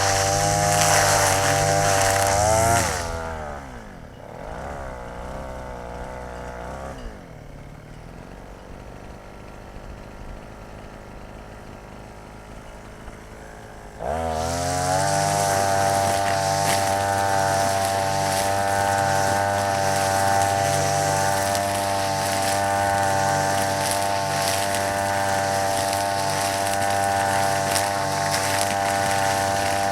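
Small two-stroke brush cutter engine spinning nylon trimmer line at full throttle. About three seconds in the throttle is released and the engine winds down to a low idle. At about 14 s it is opened up again and runs steadily at high revs.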